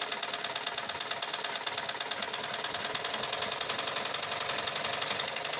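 Sewing machine running steadily at speed with a fast, even rhythm and no knocking, its loose nuts freshly tightened.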